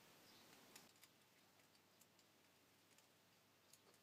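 Near silence, with a few faint, scattered light ticks from a small screwdriver driving a screw into a 3D-printed PLA cylinder cap.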